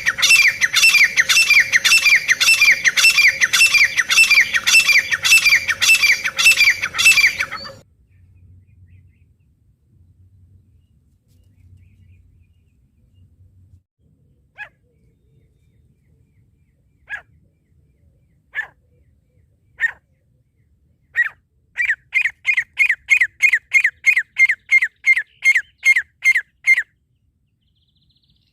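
Francolin calling: a fast series of loud, harsh, falling notes, about two a second, that stops about 8 seconds in. After a pause with a few single notes, another fast run of about fifteen notes follows near the end.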